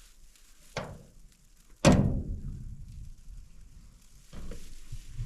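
Metal door of a grain bin being opened: a light knock, then a loud clang about two seconds in that rings on and dies away, followed by softer scraping and rustling near the end.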